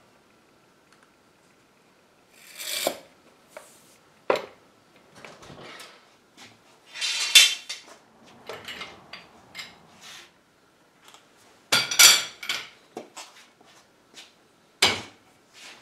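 Bar clamps being set and tightened on a wooden chair frame during a glue-up: irregular scraping, knocking and clanking of the metal clamp bars and jaws against the wood and each other, with sharp knocks a little past 4 s and near 12 and 15 seconds.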